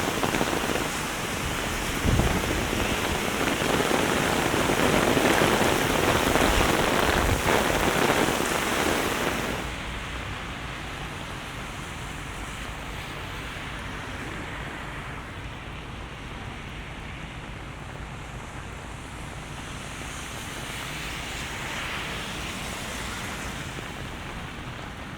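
Heavy rain and strong wind in a storm, with gusts buffeting the microphone. About a third of the way in, the sound drops suddenly to a softer, duller steady rain.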